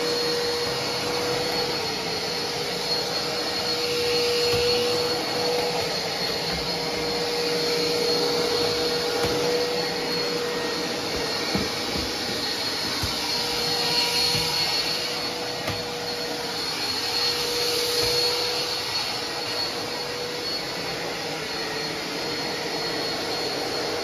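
Philips SpeedPro Aqua Plus cordless stick vacuum running with its wet mop head fitted, sucking up dust while it mops the tiled floor with water. A steady motor whine that swells and eases a little as it is pushed back and forth.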